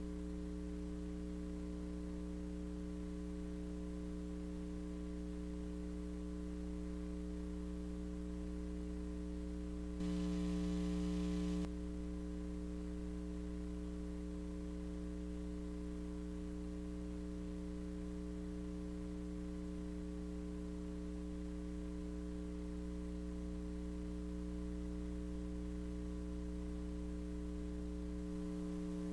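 Steady electrical mains hum with a buzzy stack of overtones and no speech. About ten seconds in it briefly gets louder and hissier for under two seconds, then settles back.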